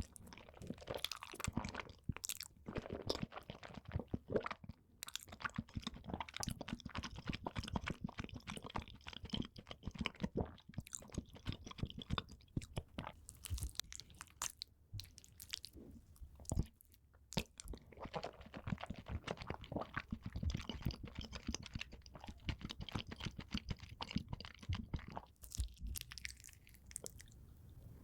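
Close-miked eating: a person biting and chewing crunchy food, with a dense run of irregular crackling crunches throughout.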